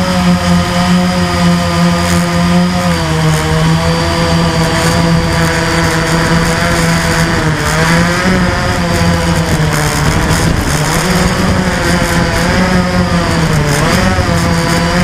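Blade 350 QX quadcopter's four electric motors and propellers, heard from a camera mounted on the craft: a loud, steady buzzing drone. Its pitch wavers up and down with dips at a few points as the motor speeds change in flight.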